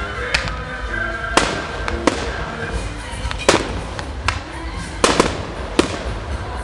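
Aerial firework shells bursting in the sky: a series of sharp bangs, about eight, irregularly spaced, the loudest about three and a half seconds in and around five seconds.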